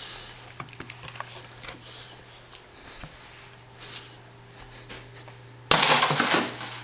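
Scattered light taps and scuffs, then near the end a sudden loud rattling crash lasting under a second as a plastic frisbee strikes a wire laundry drying rack.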